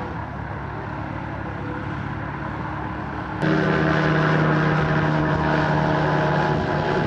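Propeller aircraft engine running steadily; about three and a half seconds in it suddenly becomes much louder and stays so.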